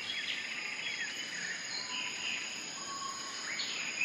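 Borneo rainforest ambience: insects sounding steadily with several thin high tones, and birds chirping and twittering now and then, with a louder run of bird calls near the end.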